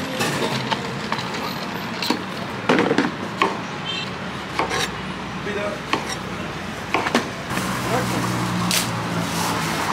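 Knife cutting oranges in half on a cutting board: irregular sharp knocks as the blade strikes the board. A low engine hum comes in about three-quarters of the way through.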